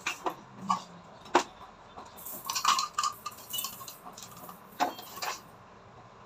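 Small hard household objects clinking and knocking as things are rummaged through and set down by hand: scattered sharp knocks in the first second and a half, a busier run of clinks and clatter about two to three and a half seconds in, and two more knocks near five seconds.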